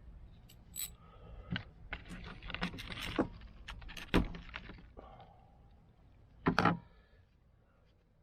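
Metal tools and small carburetor parts clinking and rattling as they are handled, with a sharp knock about four seconds in and a brief louder clatter near the end.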